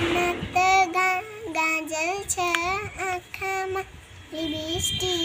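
A young girl singing a song unaccompanied, in a string of short held notes, with a brief pause about four seconds in.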